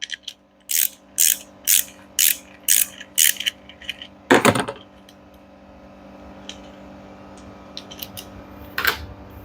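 Ratchet wrench clicking in a quick run of strokes, about two a second, then one louder stroke, as the bolt holding the V-belt pulley onto the washing machine's gearbox shaft is loosened.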